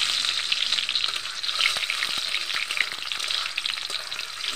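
Sliced onion sizzling and crackling in hot oil in a metal kadai, with a metal spatula scraping and clicking against the pan as it is stirred. The sizzle eases slightly toward the end.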